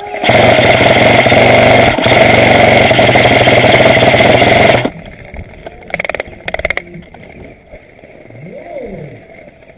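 Airsoft electric gun (AEG) firing one long full-auto burst of about four and a half seconds, a loud steady mechanical buzz that starts and cuts off abruptly with the trigger. A couple of short bursts follow about a second later.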